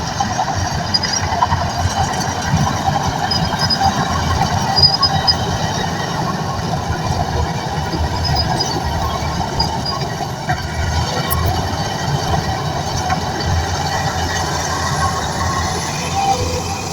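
Shantui crawler bulldozer at work: a steady low engine rumble with metallic squealing from the steel tracks above it.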